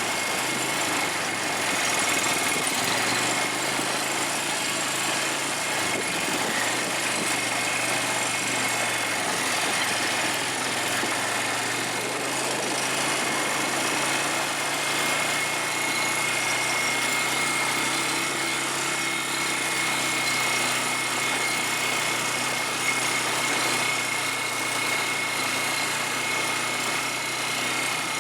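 ATV engine running steadily under way, with a constant thin high whine over the engine and road noise.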